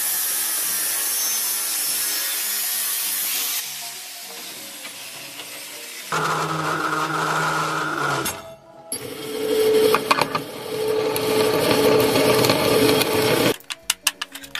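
An angle grinder cuts steel tube with a loud, steady hiss. Then a metal-cutting circular saw runs up with a steady hum and cuts through steel tubing. It stops about a second and a half before the end, and sharp clinks of cut tube pieces follow.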